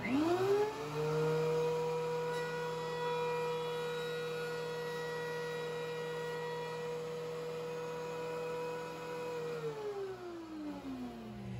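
DeWalt DW734 thickness planer starting up, its motor and cutterhead whining up to speed at once, then running steadily while a board feeds through. The motor is switched off near the end and the whine glides down as it winds down.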